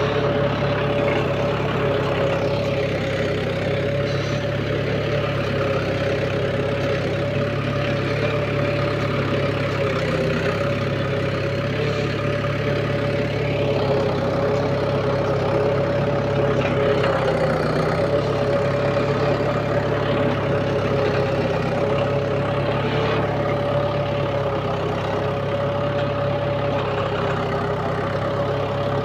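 Mahindra 475 tractor's diesel engine running steadily, with a steady whine above it.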